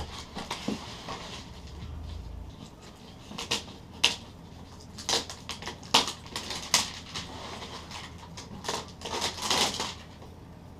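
Retail box of a new RC truck being opened and handled: irregular clicks, knocks and short rustles of cardboard and packaging, with a longer rustle near the end.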